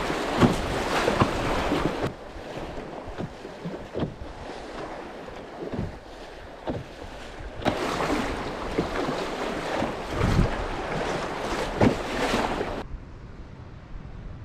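Rapids rushing and churning around a canoe running through them, loud and splashy, easing off for a few seconds in the middle and then dropping suddenly to the quieter sound of flat water near the end.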